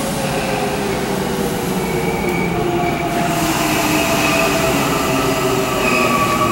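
Tobu 20400 series electric commuter train pulling into a station, with several high squealing tones over the rumble of its running gear, growing slightly louder as it draws near.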